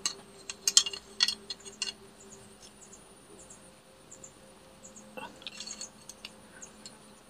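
Sharp metallic clicks and taps of steel combination pliers gripping and bending a small steel plate bolted to an angle grinder's wheel guard. Several clicks come in the first two seconds and another cluster about five seconds in, over a faint steady hum.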